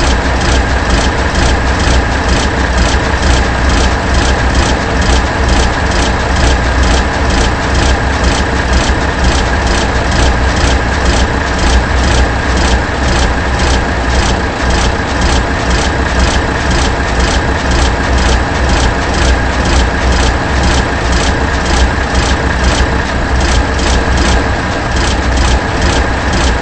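A machine running loudly and steadily, with a low rumble, a constant high whine and evenly repeating ticks a few times a second.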